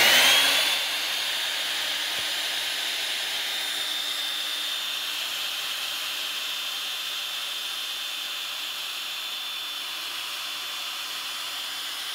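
CNC router's spindle motor running at about 19,000 RPM: a rising whine reaches full speed in the first second, then holds as a steady high whine with hiss.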